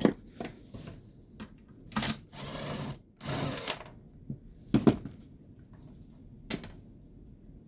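Small power driver running in two short bursts, about half a second each, backing out a screw, between sharp clicks and knocks of parts being handled.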